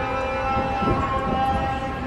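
A man's voice chanting in long held notes over a loudspeaker, the Islamic call to prayer summoning worshippers to congregational prayer.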